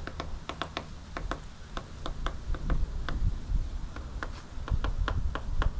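Woodpecker pecking at the wooden side of a shed: quick, irregular taps, several a second.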